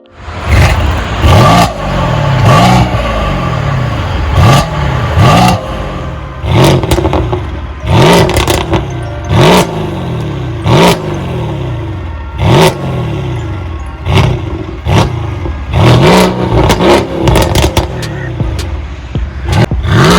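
Mercedes-AMG GLC 63 Coupé's twin-turbo V8 revved over and over in short blips, the pitch rising and falling with each one, with sharp exhaust pops and crackles as the revs drop.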